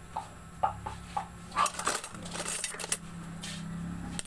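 Dishes and utensils being handled on a table: a string of separate clinks and knocks of bowls and spoons. A low steady hum comes in about halfway through.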